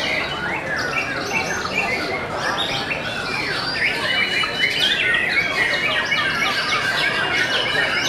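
White-rumped shamas singing at the same time: a dense, unbroken tangle of quick whistles, chirps and rising and falling notes.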